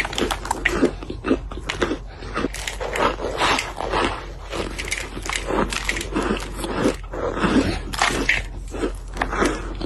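Close-up chewing of dried cornstarch chunks: crisp, crumbly crunches in a quick, irregular run, about two or three bites a second.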